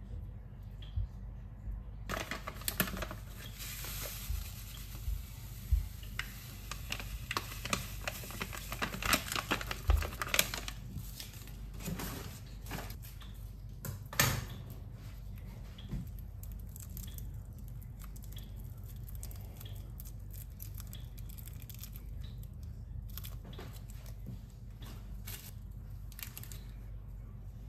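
Close handling noises: rustling and tearing with sharp clicks and light knocks for about the first fifteen seconds, then only faint occasional ticks over a steady hiss.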